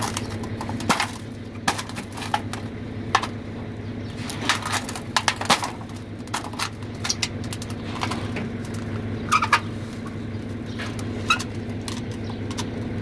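Work boots stamping on a thin sheet-metal fluorescent light fitting housing to bend it: irregular metallic clanks and knocks, with a few short squeaks, over a steady low hum.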